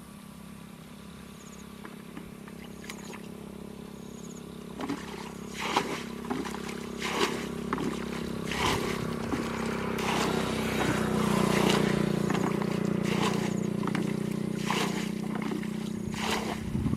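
A small motor running steadily and growing louder. From about five seconds in, repeated irregular splashes and knocks of water come over it.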